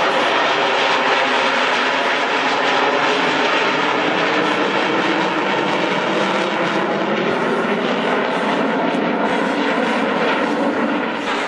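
Eurofighter Typhoon's twin Eurojet EJ200 turbofans, a loud, steady jet noise as the fighter flies past and climbs away. The noise eases slightly near the end.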